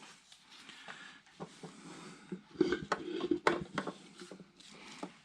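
Faint clicks and clinks of filter pliers and the loosened oil filter housing being handled and unscrewed, most of them bunched together a little past the middle.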